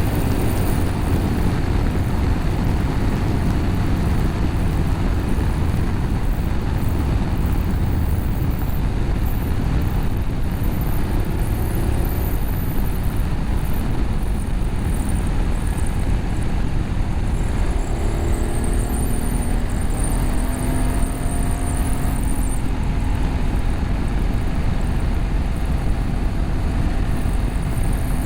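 BMW F850GS parallel-twin running at road speed through an Akrapovic slip-on exhaust with the catalytic converter bypassed, under heavy wind rush on the microphone. The engine note stands out more clearly about two-thirds of the way in.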